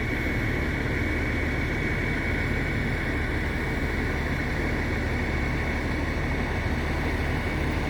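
Steady running of a vehicle engine or machinery, a low hum with a constant high whine over it.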